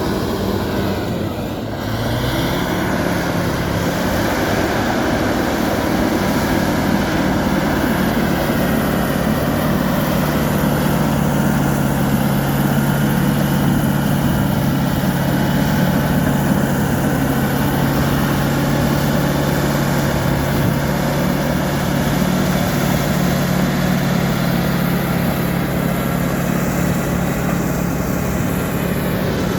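Diesel engine of a Fiat-Kobelco FD300 crawler bulldozer running steadily. Its note dips briefly and shifts about two seconds in, then holds steady.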